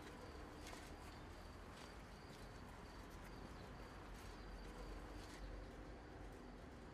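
Faint outdoor night ambience: a steady high insect trill with a few soft scattered ticks over a low rumble.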